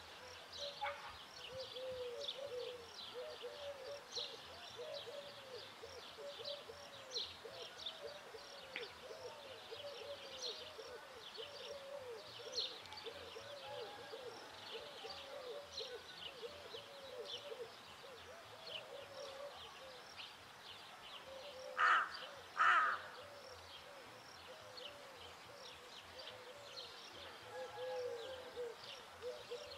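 Rook calling: two loud, harsh caws in quick succession about two-thirds of the way through. Underneath, a steady run of soft, low, repeated notes, about three a second, and constant high chirping.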